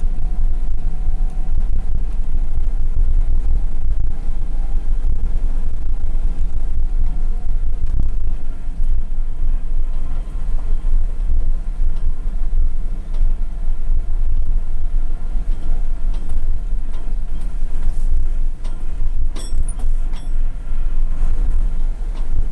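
Mercedes-Benz Unimog truck engine running while driving, heard inside the cab as a steady low rumble. A few sharp clicks sound near the end.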